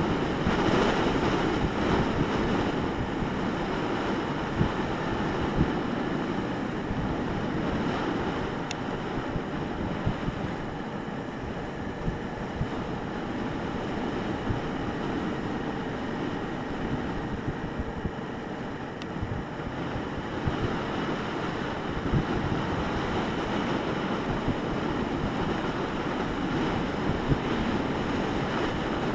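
Steady rush of wind buffeting the microphone on a moving motorcycle, with the motorcycle's engine and road noise running underneath.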